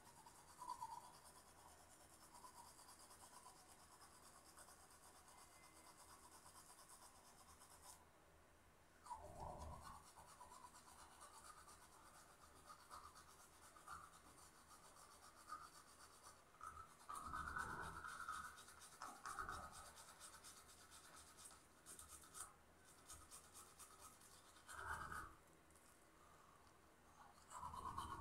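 Near silence broken by a few short spells of faint rubbing and scratching, hands working at the face over a sink.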